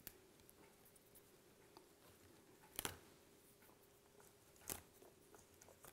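Kitchen scissors snipping through fennel stalks: two crisp snips about two seconds apart, the first a little under three seconds in, over a faint steady hum.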